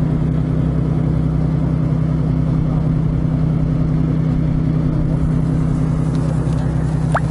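An engine running at a steady speed, giving a low, even drone. A brief rising chirp sounds near the end.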